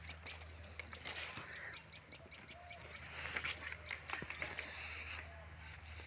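Birds chirping outdoors, with many short high calls repeating in quick succession. There is a louder scratchy burst of noise around a second in and another about three seconds in.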